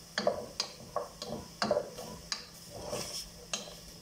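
Wooden spatula stirring in a metal cooking pot, knocking and scraping against its sides and bottom in irregular clacks, about a dozen, some in quick pairs.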